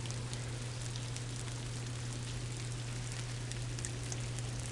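Sleet falling and pattering on ice-coated surfaces: a dense, steady patter of tiny ticks, with a constant low hum underneath.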